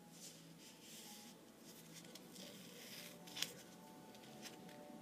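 Faint rustling and crackling of red gaffer tape being pulled off the roll and pressed across the mouth, with a sharper click about three and a half seconds in.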